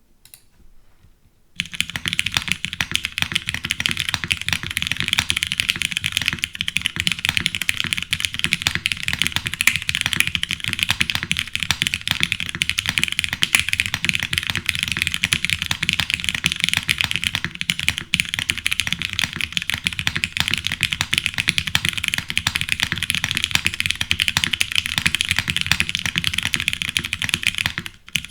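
Mechanical keyboard with broken-in Cherry MX Brown tactile switches on a polycarbonate plate, top-mounted, with GMK keycaps, being typed on fast and without a break. The typing starts about a second and a half in and stops just before the end.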